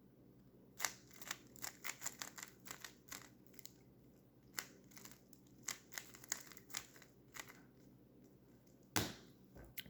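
A Rubik's Speed Cube 3x3 (GAN-made, pre-lubricated) being turned by hand: a run of faint, quick plastic clicks from its layers rotating, irregularly spaced, stopping about seven and a half seconds in. One louder click follows near the end.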